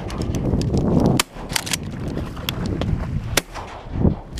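Duck hunter's shotgun fired twice at ducks passing overhead, two sharp reports about two seconds apart, over steady wind buffeting on the microphone.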